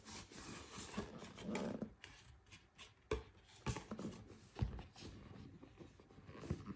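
Cardboard sleeve sliding off a rigid cardboard box with scraping and rustling, then four short knocks as the box is set down and handled on the table.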